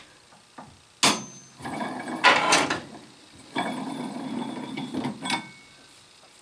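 A copper-faced mallet knocks the handle of a cast iron wing nut once, freeing it on the acme tap. Then the nut is spun off the tap by hand, its threads rattling and whirring for a couple of seconds.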